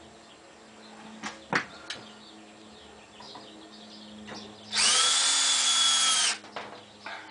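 Screw gun driving a screw through a pocket hole into wood framing: one run of about a second and a half, the motor speeding up, holding, then winding down. A few light clicks come before it.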